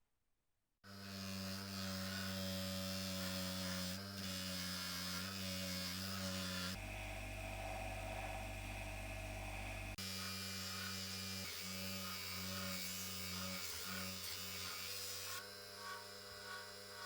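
An electric motor running with a steady mains-frequency hum, switched on about a second in; its tone shifts for a few seconds in the middle, and near the end a regular pulsing comes in.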